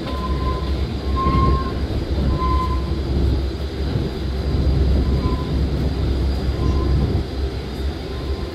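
Gornergratbahn electric rack-railway train running, a steady low rumble with several short high squeals from the wheels as it takes a curve.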